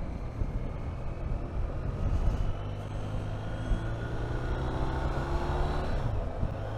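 BMW R 1250 RT's boxer-twin engine pulling the motorcycle away, its note rising steadily as it accelerates, then dropping about six seconds in at a gear change, over wind rush.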